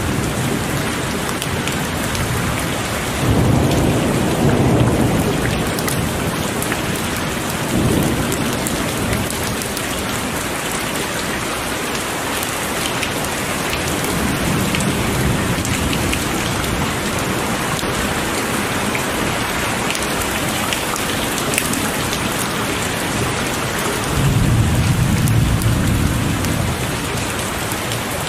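Heavy rain falling steadily, with several low rolls of thunder; the strongest swell a few seconds in and again near the end.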